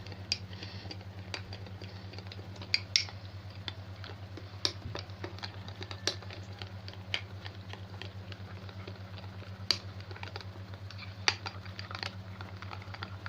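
A spoon clinking against a cup while stirring powder into a little water: irregular light clicks over a low steady hum.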